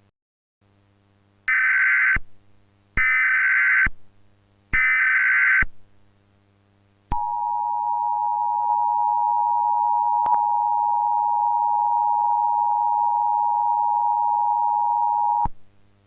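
Emergency Alert System broadcast tones: three short bursts of the SAME digital header, then the two-tone EAS attention signal held for about eight seconds, which cuts off abruptly.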